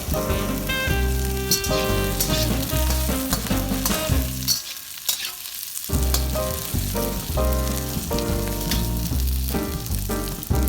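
Food sizzling as it fries in a hot pan, under background music with a repeating bass line. The music drops out for about a second near the middle, leaving only the sizzle.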